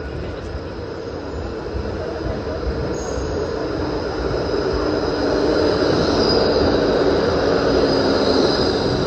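Melbourne E-class articulated tram arriving at a stop and rolling past close by, growing louder as it nears. About halfway in, a steady high-pitched squeal of steel wheels on the rails sets in.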